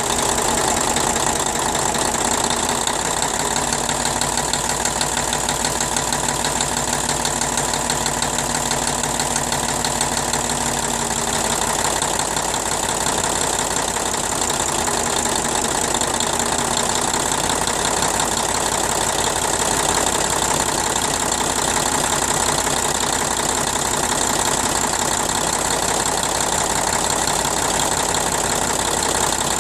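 YaMZ-236NE2 V6 turbodiesel running steadily at idle with a rapid, even knock. The owner suspects a faulty injector or the high-pressure fuel injection pump.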